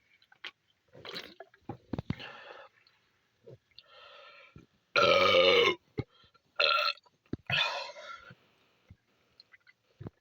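A person burping repeatedly after chugging a carbonated energy drink. There are about six burps; the loudest and longest lasts about a second and comes about five seconds in.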